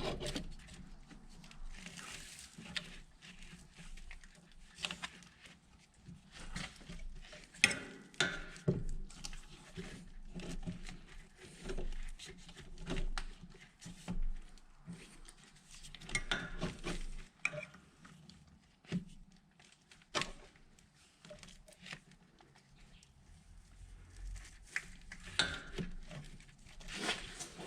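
Hand tools and metal parts clinking and scraping in irregular short bursts, as work goes on at corroded battery cables and lugs.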